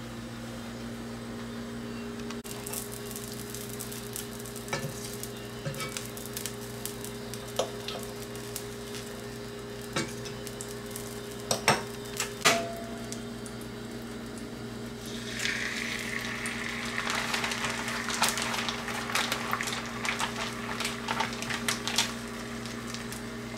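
Butter sizzling and crackling in a hot cast-iron skillet, with a metal spatula clicking and scraping against the pan a few times around the middle. About two-thirds of the way through, the sizzle turns much louder and denser as a whole rock bass is laid in the butter.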